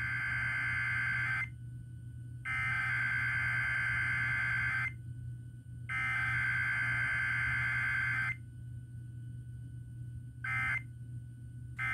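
Emergency Alert System SAME data tones on a radio broadcast during a Required Weekly Test: three bursts of buzzing digital warble, each about two and a half seconds long and a second apart, which make up the alert header. Near the end come two short bursts, the end-of-message code, all over a steady low hum.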